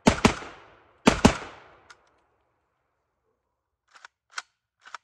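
JTS-12 AK-pattern semi-automatic 12-gauge shotgun with a binary trigger firing two quick pairs of shots about a second apart: each pair is one shot on the trigger pull and one on the release, each ringing out and fading. About three seconds later come a few light clicks as the emptied gun is handled.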